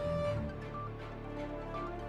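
Background music: soft, sustained instrumental tones with gently struck notes.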